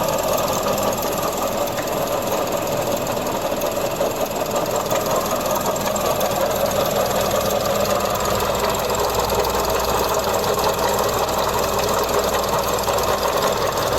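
Mazda CX-30 engine idling with a steady, fast rattle from the accessory-belt tensioner pulley, which the mechanic takes for a failing tensioner.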